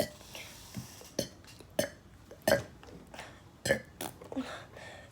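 A person burping over and over: about half a dozen short, separate burps in quick succession, roughly one every half second to a second.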